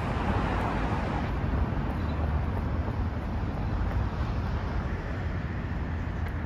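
Steady outdoor street noise: a low rumble of wind on the microphone and road traffic, with no single event standing out.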